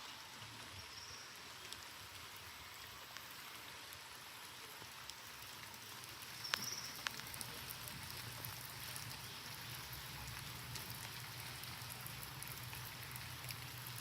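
Steady rain falling, a soft even hiss with scattered drops ticking, a couple of sharper ticks about six and a half seconds in.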